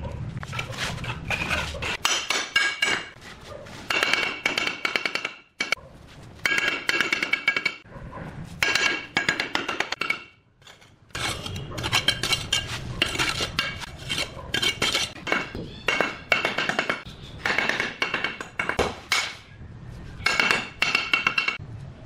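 Steel bricklaying trowel scraping cement mortar and tapping clay bricks into place: quick runs of clinking, ringing metal taps, broken twice by brief pauses.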